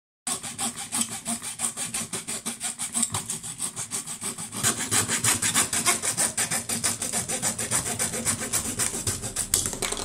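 Hacksaw cutting through a yellow plastic part by hand, in quick, even back-and-forth strokes that get louder about halfway through.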